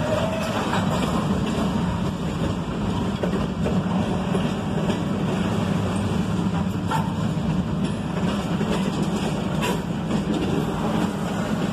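Double-stack intermodal well cars of a CSX freight train rolling past: a steady rumble of steel wheels on rail. There are a couple of light clicks, about seven and ten seconds in.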